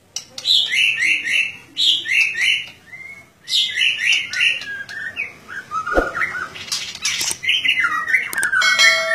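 White-rumped shama (murai batu) in loud, open song: quick bursts of short whistled phrases with brief pauses between them. A single sharp knock comes about six seconds in.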